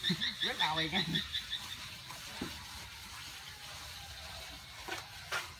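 A warbling call with a rapid high chirping trill, fading out about two seconds in. Then a few short scrapes of steel plastering trowels on wet cement render, the last and loudest near the end.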